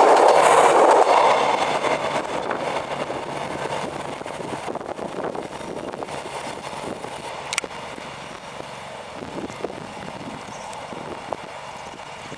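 Train passing on the rails, its rumble loud for the first second or so and then fading steadily as it moves away, with a sharp click about halfway through.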